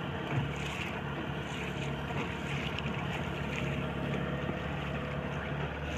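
Engine of a small motorised fishing boat (ketek) running steadily at an even pitch while trolling, with a hiss of wind and water over it.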